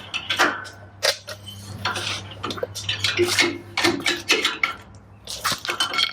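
Metal tools and suspension hardware clinking and knocking: a busy run of short metallic clicks as wrenches, nuts and bolts are handled while a shock is fitted. A faint steady hum lies underneath.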